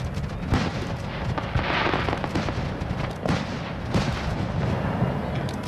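Aerial fireworks shells bursting in a string of booms and bangs, with a stretch of crackling hiss about two seconds in.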